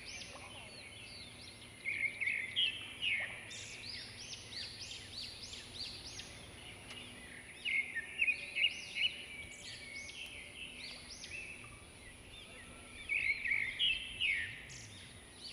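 Wild birds chirping and singing in quick repeated notes, with louder flurries about two, eight and thirteen seconds in.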